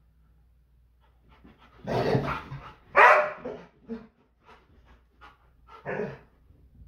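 Labrador retriever barking a few times, the loudest bark about three seconds in and another near six seconds, with short quieter sounds in between.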